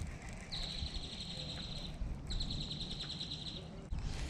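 A songbird singing two even, dry trills on one high pitch, each about a second and a half long with a short gap between them.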